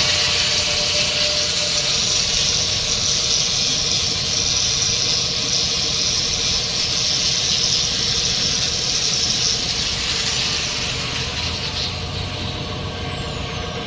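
High-speed rotary tool running with a steady, hissing, grinding whine. About eleven seconds in it is let go, and its whine falls steadily in pitch as it spins down.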